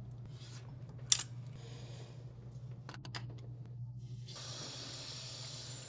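Urinal plumbing: one sharp click about a second in and a few lighter clicks, then a steady hissing rush of water begins a little past two-thirds through, over a low steady hum.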